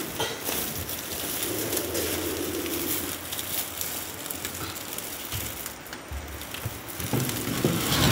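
Woven plastic sack crinkling and rustling as it is held open and gathered shut while a king cobra slides into it.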